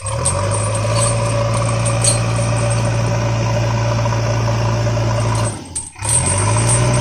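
Vehicle engine running steadily at idle, a hum with a light rattle, that drops out briefly near the end and starts up again.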